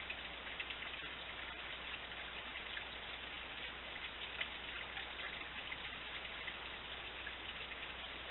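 Backyard urn fountain running, its water spilling over the rim and splashing into the stone basin below: a steady patter of falling water with many small droplet splashes.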